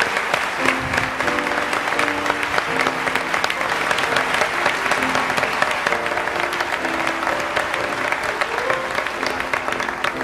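Studio audience applauding, with instrumental music playing underneath.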